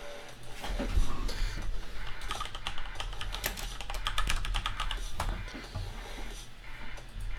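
Typing on a computer keyboard: a fast run of key clicks, thickest in the middle few seconds.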